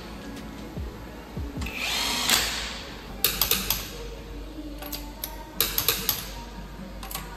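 Cordless impact wrench briefly whirring as it runs a wheel bolt in on a BMW M140i's alloy wheel, followed by clusters of sharp metallic clicks as the wheel bolts are tightened with a click-type torque wrench.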